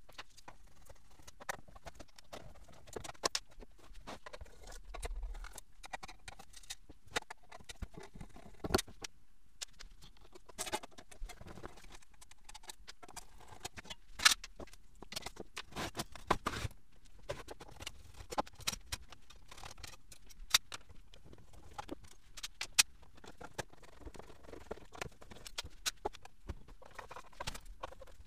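Irregular clicks, clinks and knocks of an aluminium rack-mount instrument chassis being taken apart by hand: panels and rails coming off, screws being handled and set down on the bench. The loudest knock comes about halfway through.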